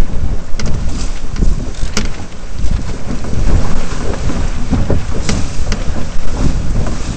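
Strong wind buffeting the microphone of a camera mounted on a Flying Dutchman sailing dinghy under way, a heavy continuous rumble over the hiss of water rushing past the hull. A few sharp ticks cut through now and then.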